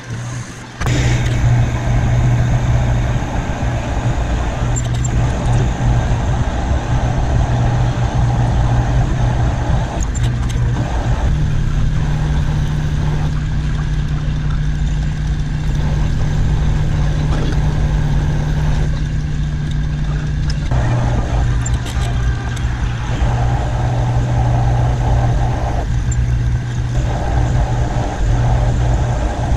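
Metal lathe running with a steady motor and gear hum while a twist drill fed from the tailstock bores into the end of a spinning metal bar. The cutting noise comes and goes in stretches. The sound gets louder about a second in, and the pitch of the hum shifts up about 11 seconds in and back down about 21 seconds in.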